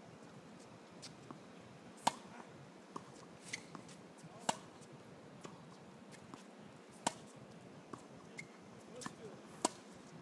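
Tennis balls struck by rackets in a groundstroke rally: four loud, sharp pops about two and a half seconds apart, with fainter pops in between.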